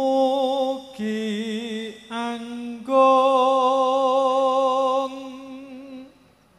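A solo male voice chanting a Javanese sung prayer (puji sesanti), unaccompanied, in four drawn-out phrases with a wavering vibrato. The last note is held for about two seconds and fades out near the end.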